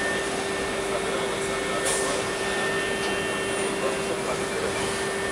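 Spinner 5-axis CNC machining centre running as it mills an impeller: a steady mechanical hum with a steady mid-pitched whine over it, and a brief high hiss about two seconds in.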